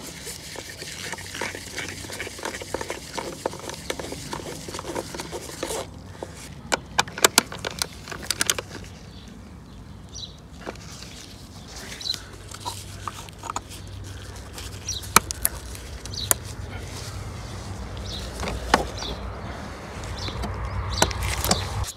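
Hands at work in a car's engine bay, refitting a MAP sensor on the intake manifold: rustling and handling noise with a run of sharp plastic clicks and knocks a few seconds in, then scattered clicks and a low rumble as the plastic engine cover is handled near the end.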